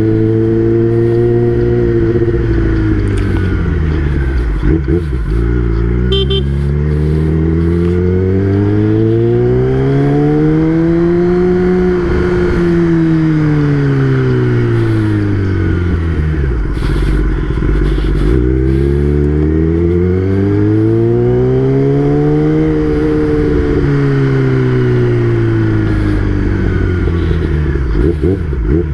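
Kawasaki ZX-10R's inline-four engine under way on the road. Its pitch climbs in long smooth sweeps and falls away again, twice peaking and dropping, then rising once more near the end.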